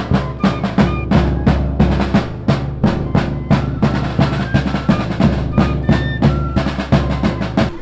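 A snare drum and a bass drum beating a fast, steady rhythm, with a high wind instrument playing a few short notes over them. This is the music of a band playing for a funeral.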